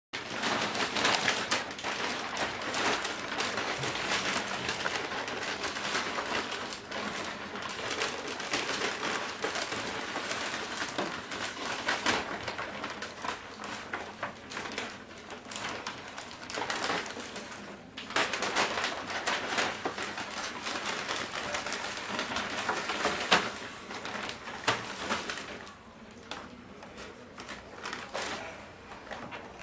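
McDonald's paper takeaway bags and cardboard food boxes rustling and crinkling as they are unpacked and opened, with many small clicks and taps of packaging on a table. It grows quieter over the last few seconds.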